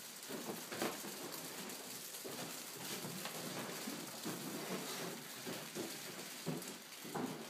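Thin clear plastic sheeting of an inflating tube crinkling and rustling as it fills, a continuous run of small irregular crackles.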